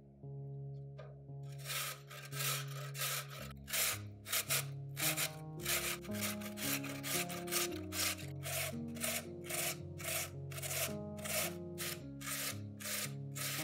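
Peeled raw potato rubbed down the medium holes of a stainless-steel box grater: a rasping scrape about twice a second, starting about a second in, over soft background music.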